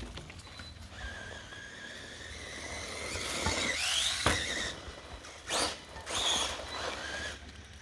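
Redcat Volcano electric RC monster truck running on a 4S battery: its motor whines, the pitch climbing steeply as it speeds up. A sharp knock follows about four seconds in, then two short rushing noises.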